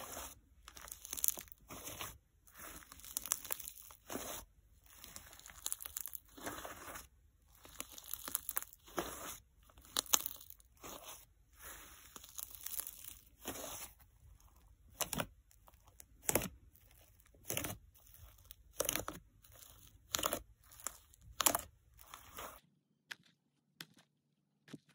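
Fluffy clay slime squeezed, kneaded and stretched by hand, making irregular squishing and crackling noises. In the second half these give way to sharper single pops, about one a second.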